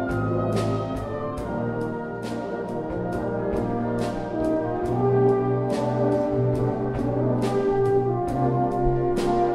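Symphonic wind band playing a slow ballad live, with brass such as horns and trombones holding sustained chords over a steady beat of light strikes. The band grows a little louder about halfway through.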